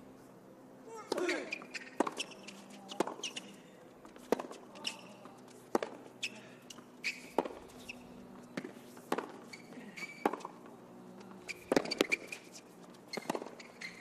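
Tennis rally on a hard court: a serve, then the ball struck back and forth by rackets and bouncing, a sharp hit roughly every second starting about a second in.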